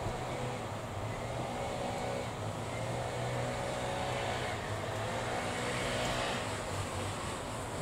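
Motor vehicle engine running steadily, a low hum with a fainter higher drone above it.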